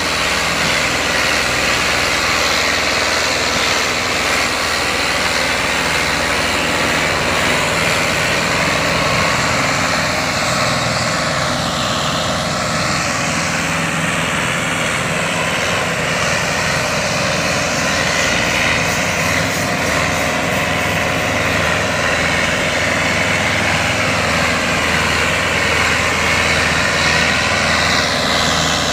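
Diesel tractor engines of a New Holland Dabung 85 and a Ford 4610 running steadily under heavy load, pulling a fully loaded sugarcane trolley in tandem.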